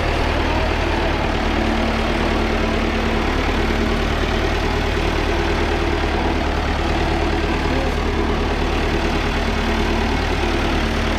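An engine idling steadily: a constant low hum that holds the same speed throughout.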